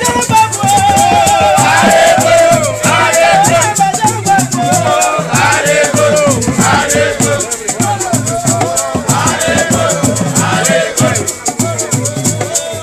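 Traditional Ekpe masquerade music: rattles shaken in a fast, steady rhythm over a low beat, with voices singing over them.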